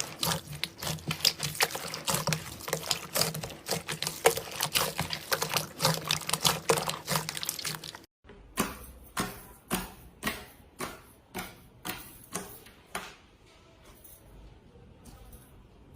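Slime being squished and worked by hand: a dense run of quick wet pops and clicks. About halfway through it cuts to a slower series of separate pops, roughly two a second, that grow fainter and stop a few seconds before the end.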